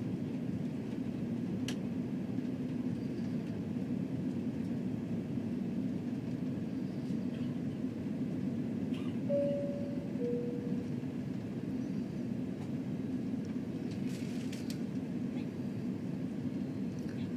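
Steady low cabin roar inside an Airbus A340-300 airliner in flight. About nine seconds in, a two-tone cabin chime sounds: a higher note, then a lower one about a second later.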